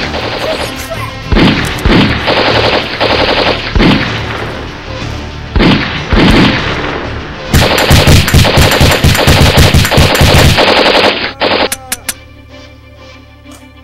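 Automatic gunfire sound effects in several long bursts of rapid fire. The longest, loudest burst comes about halfway through and stops near the end, followed by a few scattered single shots.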